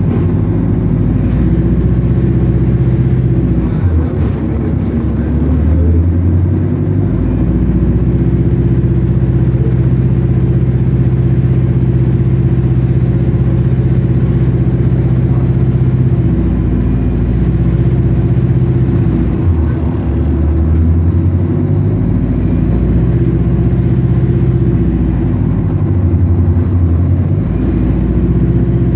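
A bus engine running steadily under way, its low drone changing pitch several times as it moves.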